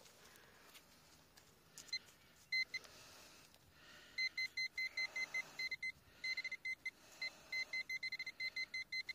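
Handheld metal-detecting pinpointer beeping as its probe is pushed through loose soil in a dug hole: a couple of short beeps at one steady pitch, then rapid pulsed beeping from about four seconds in that comes faster near the end, the sign of a metal target close to the probe tip.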